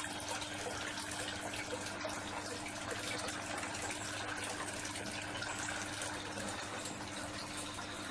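Water running or bubbling steadily, with a faint steady hum underneath.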